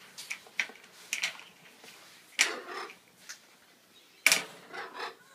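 Irregular sharp clicks and knocks, the loudest about four seconds in: toy blocks being knocked about by African grey parrots.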